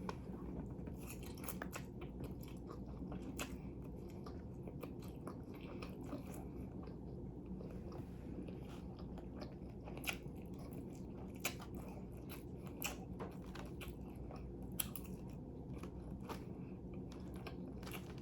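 Close-miked chewing and biting of food, with scattered short clicks and smacks over a steady low background hum.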